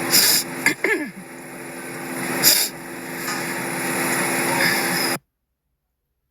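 A car's engine and road noise, a steady hum under a rising rush, with two short hissing bursts, cutting off abruptly to silence about five seconds in.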